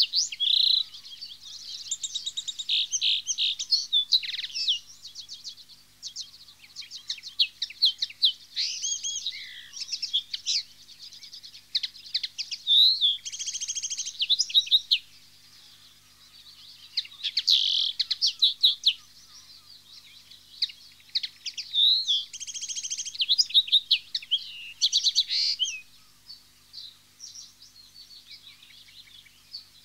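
Common linnet singing: quick runs of twittering, chattering notes and short buzzy trills, in bursts of a few seconds with brief pauses between.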